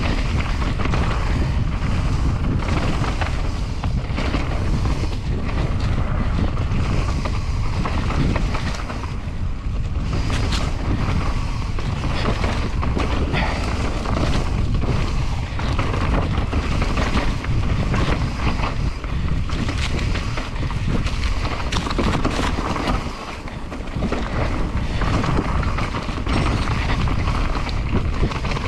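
Wind buffeting the camera's microphone while riding a mountain bike down a trail, over a constant rattle and frequent knocks from the bike's tyres, chain and suspension on rough ground; it eases briefly about two-thirds of the way through.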